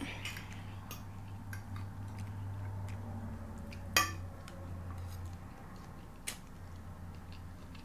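Cutlery clinking against a plate during eating: a few sharp clicks, the loudest about four seconds in, among smaller taps, over a low steady hum.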